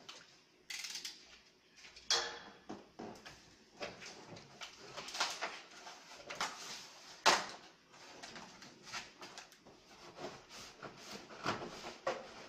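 Large cardboard TV box being handled and opened: cardboard scraping and rubbing, with sharp knocks about two seconds in and again, loudest, a little after seven seconds.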